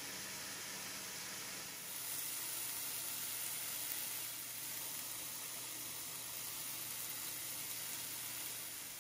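Diced chicken sizzling in a hot nonstick frying pan: a steady hiss that gets a little louder about two seconds in.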